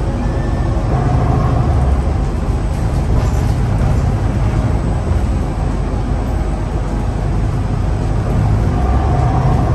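City bus driving at road speed, heard from inside the passenger cabin: a steady low engine drone with road and tyre rumble.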